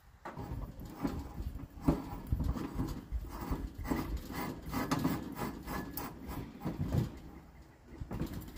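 Irregular knocks, scrapes and rubbing of gear being handled against wood, as a portable propane grill is readied.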